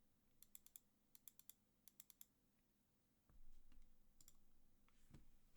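OwLab Mr. Suit mechanical keyboard with lubed OwLab Tungsten switches and GMK keycaps: a few faint, scattered keystroke clicks in small clusters over the first two seconds. A low rumble follows, then a dull thump about five seconds in.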